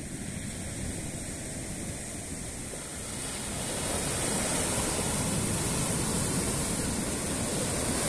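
Sea surf breaking on a sandy beach, a steady rush of foaming water that swells about four seconds in as a wave breaks and washes up the sand.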